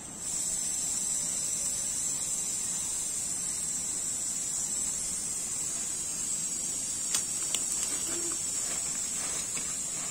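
Steady high-pitched insect drone that sets in abruptly and holds without a break. A couple of light clicks about seven seconds in, and faint rustling ticks near the end.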